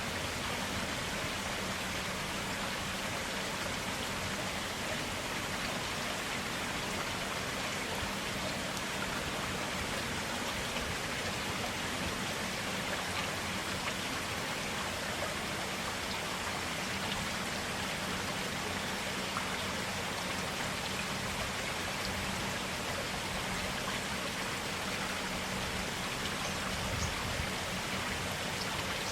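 Forest stream running clear and steady, an even rush of flowing water with small splashes and trickles.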